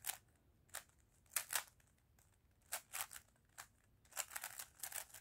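Plastic 3x3 puzzle cube being turned by hand, its layers clicking and clacking as they snap round. There are a few spaced turns, then a quick run of them about four seconds in.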